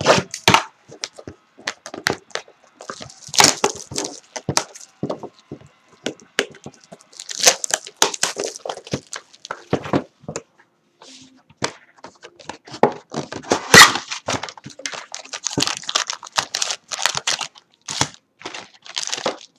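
Plastic wrapping and cardboard of a trading card box being torn open and handled. Crinkling and tearing come in irregular bursts, with many sharp cracks and clicks.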